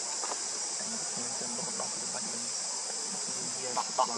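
Steady high-pitched drone of insects, cicadas or crickets, outdoors. Two short sharp clicks come near the end.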